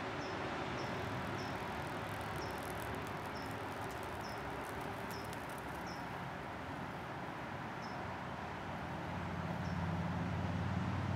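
Hummingbird giving short, high chip notes every second or so over a steady background hiss, with a low hum swelling near the end.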